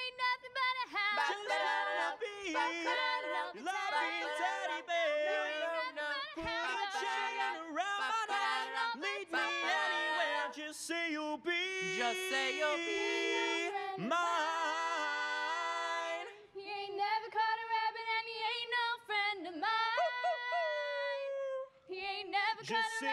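Male and female voices singing together a cappella in harmony, with a long held note a few seconds before the end.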